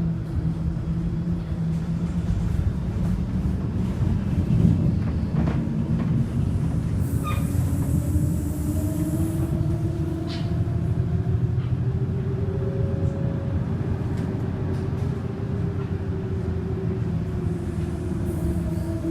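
Interior of a moving city bus: a steady low drive rumble with a whine that rises and falls as the bus speeds up and slows. A burst of hiss lasts about two seconds near the middle.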